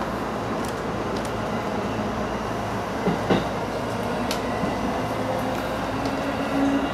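Running noise of a JR East E233 series 8000 electric train heard inside the front car: a steady rumble and hiss from wheels on rail, with two sharp knocks about three seconds in and a steady tone coming in near the end.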